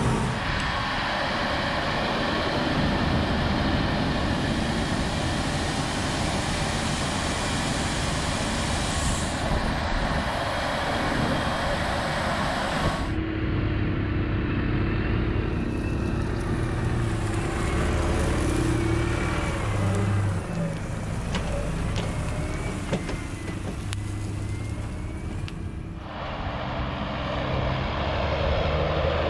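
Claas Lexion 780 TT combine harvester running while threshing barley, a dense steady machine noise. After a cut about halfway through, a lower, steadier engine hum. Near the end a Fendt tractor with a grain trailer drives up, its engine getting louder.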